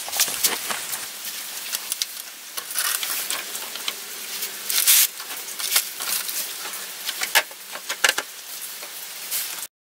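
Irregular clicks, knocks and scraping of a plastic radiator fan assembly being handled and worked into place under a car, over a steady hiss. The loudest scrape comes about five seconds in, and the sound cuts off abruptly near the end.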